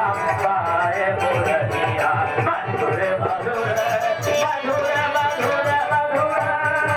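Hindu devotional song (bhajan) sung by a man, accompanied by tabla and harmonium, with a steady drum beat under the wavering sung melody.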